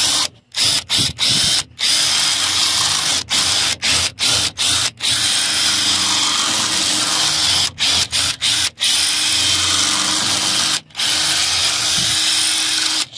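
Ryobi cordless drill boring through a truck's running board, run in bursts with many brief stops and a few longer runs. The bit is being worked up, down, left and right to widen the hole for two wires, because the right-size bit isn't at hand.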